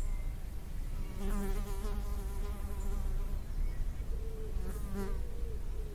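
A flying insect buzzing near the microphone, its hum wavering in pitch as it moves. It is loudest about a second in and again near the end, then stops.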